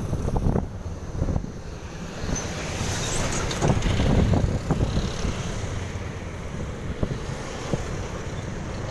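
Wind buffeting the microphone over the rumble of a motorcycle riding along a road, with passing traffic; the noise swells about halfway through.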